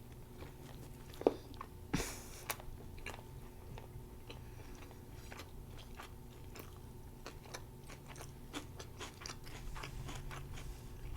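A person biting into a large burger, with a sharp crunch about two seconds in, then chewing close to the microphone in many small irregular mouth clicks.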